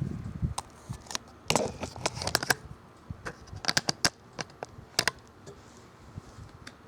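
Handling noise: irregular light clicks and crackles, about a dozen, spread over several seconds and thickest in the middle, over a faint background.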